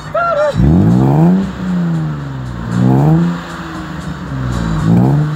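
BMW E34 525i's M50 inline-six, a stroker with its VANOS freshly repaired, revved three times through a Remus aftermarket exhaust. Each blip climbs quickly and falls back to idle.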